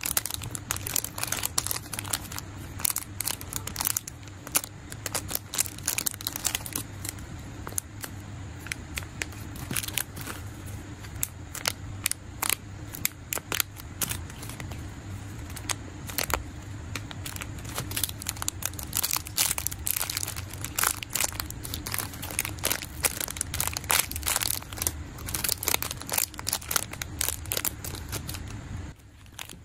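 Thin clear plastic bags crinkling and crackling as small squishy toys sealed inside them are picked up and handled, in irregular bursts of sharp crackles. A steady low hum runs underneath and stops near the end.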